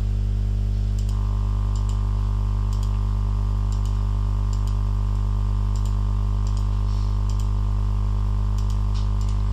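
Computer mouse clicking, often in quick pairs, roughly once a second, over a loud steady low electrical hum; a steady higher tone joins the hum about a second in.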